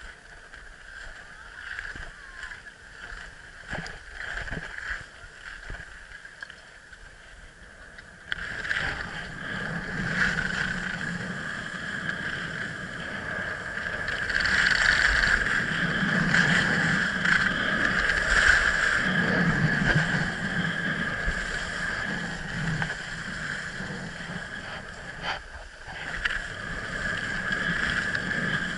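Skis sliding and scraping over packed snow on a downhill run, a steady hiss. It is quiet with a few clicks for the first several seconds, then grows much louder from about eight seconds in as the skier gets moving.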